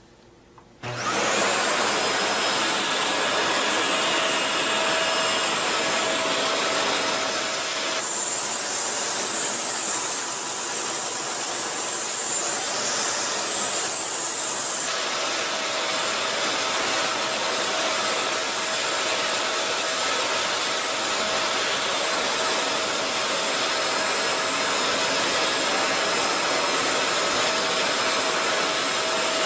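Shark NV501 Rotator upright vacuum cleaner switched on about a second in, its motor then running steadily with a high whine; the hiss changes for several seconds in the middle.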